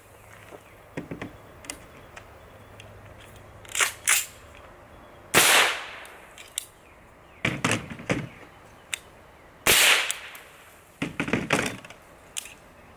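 Suppressed AR-15 rifles in 7.62x39 and 5.56 fired into the dirt: several sharp shots a few seconds apart, the loudest about five and ten seconds in, with smaller sharp reports and knocks between. The suppressors quiet the muzzle blast, but the supersonic bullets still crack.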